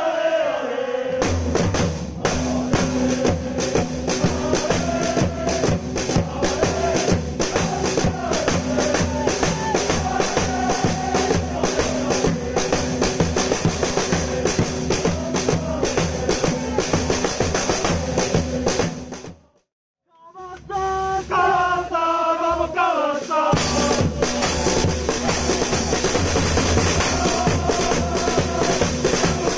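Snare drums beating a fast, dense rhythm under football supporters' chant singing. About two-thirds of the way through, everything cuts off for about a second. The crowd's chant then comes back on its own for a few seconds before the drums return.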